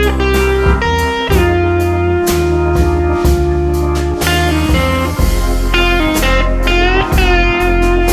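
Background music: guitar with sustained, gliding notes over bass and drums with a steady beat.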